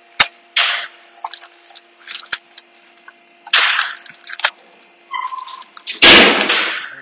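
Plastic wrapping and tape being torn and pulled off a new CVT oil strainer: sharp snaps and crackling rustles in several bursts, the loudest about six seconds in.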